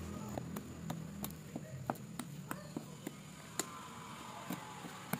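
Metal fork pricking holes in thick cake batter in a lined baking tin, with sharp clicks about three times a second, each time the tines go in.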